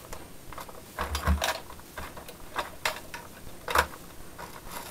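Scattered clicks and light knocks of a vacuum brake-bleeder gun and its clear plastic hose being handled.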